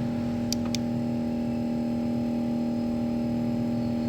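Automotive smoke machine running with a steady, even hum while it pushes smoke into the intake to find a vacuum leak. Two faint clicks come about half a second in.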